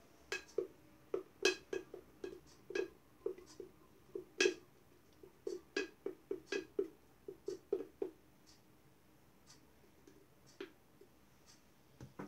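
A spoon stirring sourdough starter in a glass jar, clinking and scraping against the glass in quick irregular taps. The taps thin out after about eight seconds.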